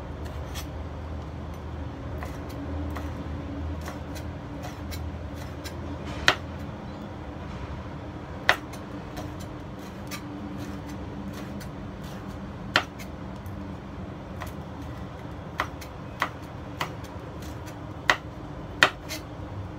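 Kitchen knife slicing red chilies on a cutting board: sparse, irregular sharp knocks of the blade meeting the board, more frequent in the second half, over a steady low hum.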